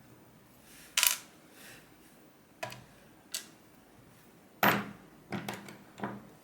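Small metal clicks and taps as the pins and springs of a Medeco M3 lock cylinder are picked out with tools: about six sharp clicks spread out, the loudest about two-thirds of the way through.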